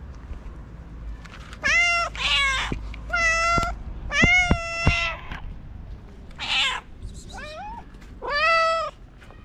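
A hungry street cat meowing for food: about six loud, drawn-out meows in a row, each rising then falling in pitch. A few sharp clicks fall among the middle calls.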